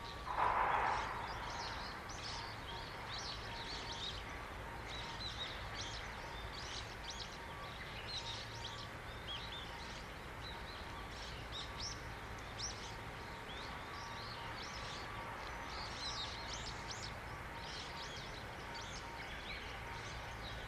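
Small birds chirping and twittering over a steady distant hum. About half a second in there is a brief rush of noise lasting around a second, the loudest sound.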